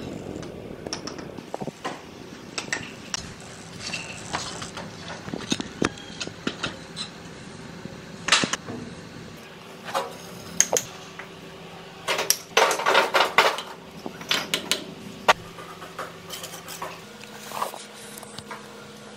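A steel trowel clinking and scraping against clay bricks and mortar as bricks are laid, in scattered sharp knocks, with a quick run of taps just past the middle.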